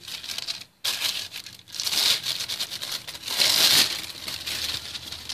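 Clear plastic bag crinkling and rustling as hands work it over soft dough, in several bursts.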